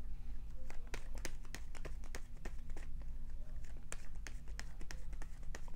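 A deck of tarot cards being shuffled by hand: a string of irregular light card clicks and snaps, over a steady low hum.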